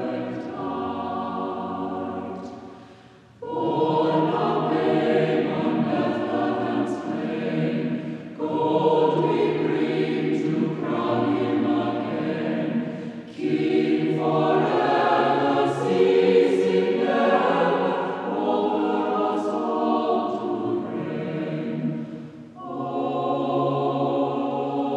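Background music: a choir singing, in phrases separated by short pauses.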